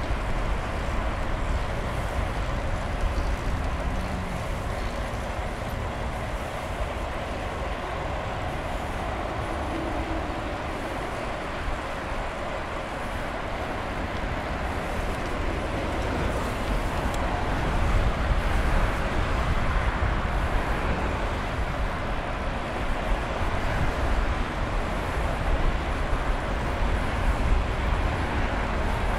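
Steady traffic noise from cars on a multi-lane road beside the path, heard while cycling, over a low rumble, growing a little louder about two-thirds of the way through.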